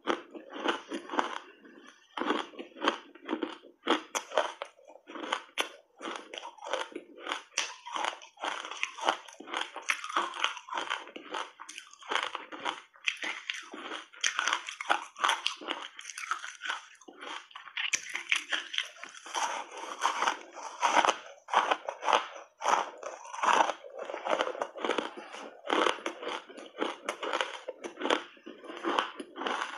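Ice chunks coated in dry matcha powder being bitten and chewed, a dense, irregular run of crisp crunches.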